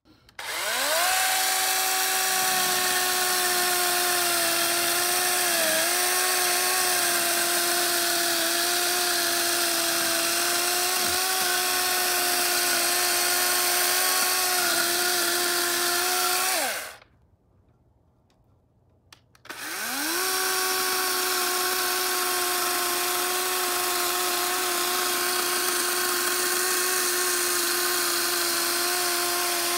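DeWalt 20V MAX DCCS620 brushless battery chainsaw spinning up with a rising whine and running steadily while cutting through a wooden beam. A little past halfway it winds down and stops for a couple of seconds, then spins up again and runs on.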